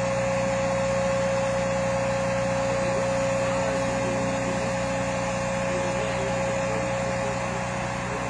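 An engine running steadily, a constant low drone with a high, even whine over it.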